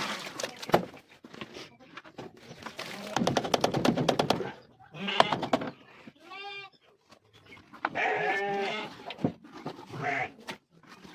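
Sheep bleating several times, quavering calls that overlap and follow one another, with a few sharp knocks between them.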